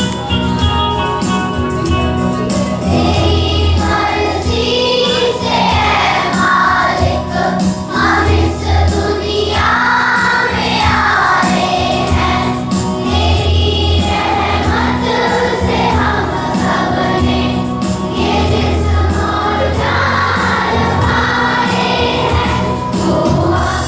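A choir singing a prayer song together over steady instrumental backing with a regular beat.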